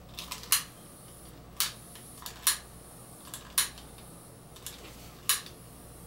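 Long-nosed butane utility lighter being clicked over and over, about five sharp clicks of its trigger-operated igniter at uneven intervals of roughly a second, with a few fainter ticks between them.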